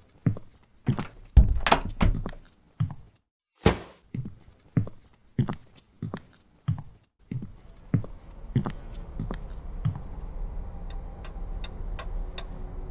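Evenly paced footsteps thudding on a floor, about one and a half steps a second, loudest about a second and a half in, with a short hiss near four seconds. From about eight seconds a steady low hum comes in under the steps, which turn lighter and tick-like.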